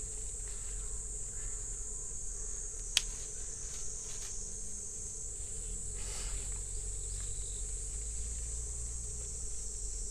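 Steady high-pitched trilling of insects, with one sharp snip of scissors cutting mint stems about three seconds in and a few fainter clicks after it.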